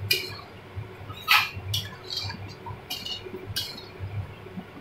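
A spatula scraping and knocking against a metal kadai as rice and lentils are stirred in oil. There are about half a dozen short, unevenly spaced scrapes, the loudest about a second and a half in.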